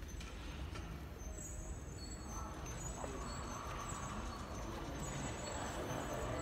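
Steady hum of a large indoor terminal hall with faint distant voices.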